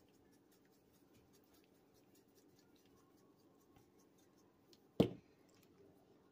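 Garlic powder being shaken from a plastic spice shaker over chicken wings: faint, quick ticking and rattling of the shaker, with one sharp knock about five seconds in.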